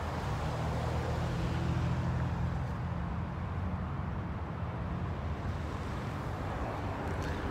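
Steady low hum of a motor vehicle engine running, over a wash of road traffic noise; the hum weakens a little after about five seconds.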